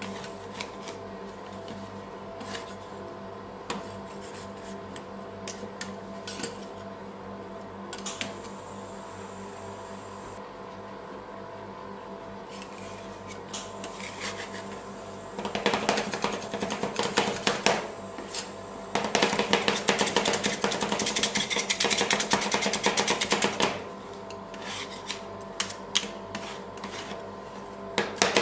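Metal spatulas tapping and chopping avocado on a stainless-steel ice cream roll cold plate: scattered single taps at first, then rapid chopping in two long runs from about halfway through. A steady hum sits underneath.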